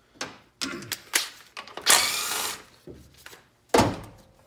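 Cordless impact gun run in several short bursts, the longest about two seconds in, followed by a sharp clunk near the end.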